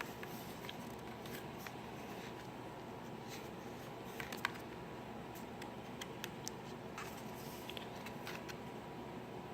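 Pages and flaps of a lift-the-flap picture book being turned and opened by hand: soft rustles and small paper clicks, one sharper snap about halfway through and a cluster of clicks near the end, over a steady room hiss.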